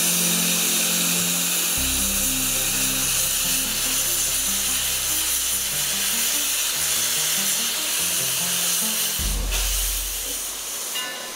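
Background music with slow, held bass notes, over a steady hiss of steam venting from a narrow-gauge steam locomotive's cylinder cocks while it stands under steam.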